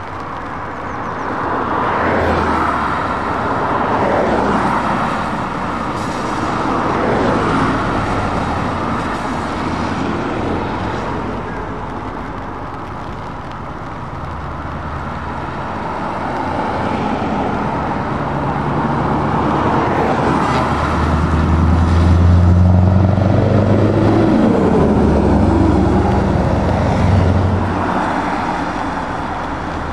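Road traffic passing: cars and trucks driving by with tyre noise in slow swells, and a heavy vehicle's low engine note that grows loudest a little past the middle.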